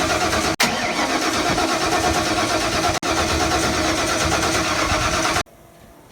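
Starter motor cranking a 408 cubic-inch small-block Ford V8 that turns over but does not start. The plug wires are on in the wrong firing order, set for clockwise rotation while the distributor turns counterclockwise. The cranking breaks off for an instant twice and stops abruptly about five and a half seconds in.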